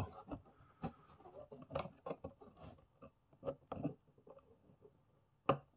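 Hands handling a cardboard advent calendar and small LEGO pieces: scattered light rubbing and short clicks, with a sharper click near the end.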